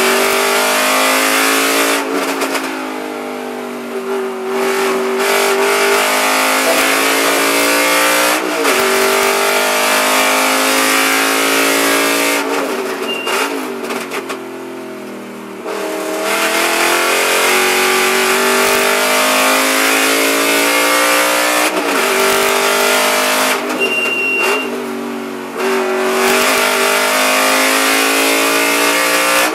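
Aston Martin Vantage V8 GT4 race car's naturally aspirated 4.7-litre V8 at racing speed: the engine pulls hard and climbs in pitch through the gears, then three times backs off under braking for a corner, with quick throttle blips on the downshifts, before pulling hard again.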